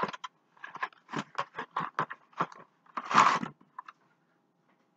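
Cardboard box crunching and scraping as a stainless-steel wire grill basket is taken out of it: a run of short crunches, then one longer scrape about three seconds in.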